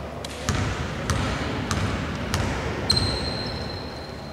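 Basketball bounced on a hardwood court four times at an even pace, about 0.6 s apart, as the shooter dribbles at the free-throw line before a shot, each bounce echoing in a large hall. Near the end a click is followed by a steady high-pitched tone lasting over a second.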